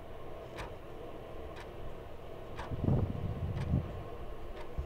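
A timer ticking about once a second over the steady rush of an electric fan, with a couple of dull low thumps about three seconds in.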